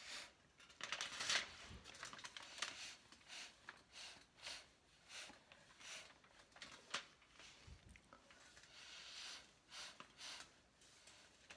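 Faint, repeated short puffs of breath blown through a straw onto wet acrylic paint, about one a second, with the strongest cluster about a second in.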